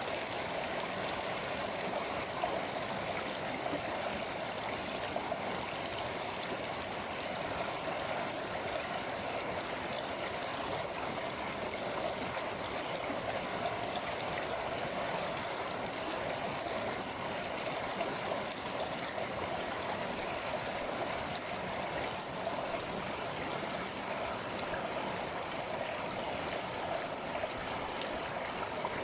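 Carpathian mountain river rushing and gurgling over rocks, a steady flow of water.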